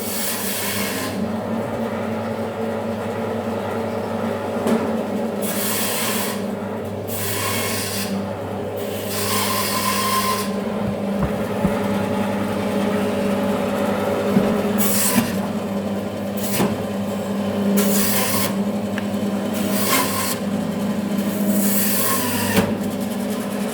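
Electric bone-cutting band saw running with a steady motor hum, with a rush of cutting noise each time the blade goes through the workpiece: several cuts of about half a second to two seconds at irregular intervals.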